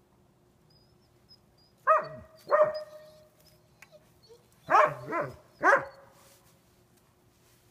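German Shepherd barking: five loud barks, a pair about two seconds in, then a quick run of three a few seconds later.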